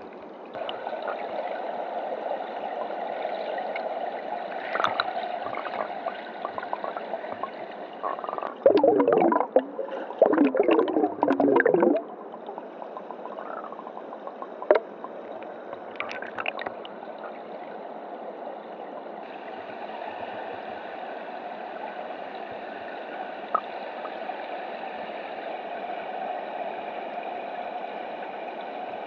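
River water flowing past an underwater camera: a steady rushing, with a loud spell of gurgling and bubbling about nine seconds in that lasts about three seconds, and a few brief clicks.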